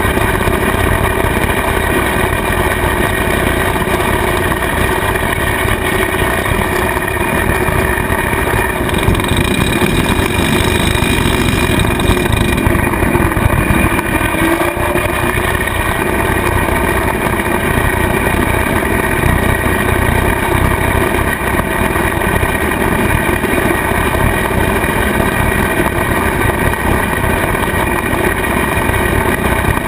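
Kubota tractor's diesel engine running steadily under load, driving a rotary cutter (bush hog) through the PTO while mowing grass. The engine note dips briefly about halfway through.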